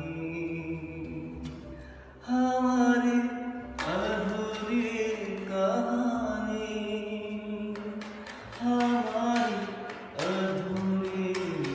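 A solo voice singing long, held, gliding notes in a South Asian melodic style, with light rhythmic tapping.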